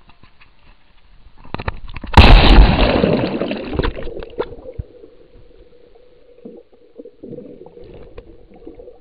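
A loud splash about two seconds in as a diver plunges into a swimming pool with the camera, then muffled underwater bubbling and gurgling with a steady hum underneath.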